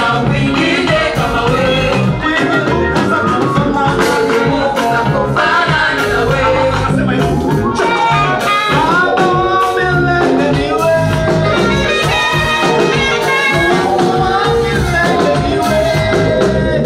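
A praise song sung by voices with instrumental backing and a steady beat.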